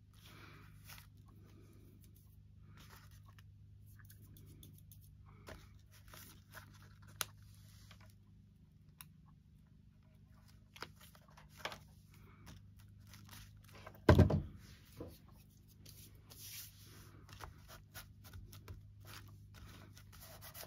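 Paper craft materials being handled: scattered rustles and small taps, with one loud knock about two-thirds of the way through, over a steady low hum.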